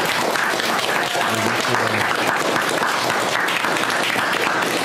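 Congregation applauding, many hands clapping steadily together.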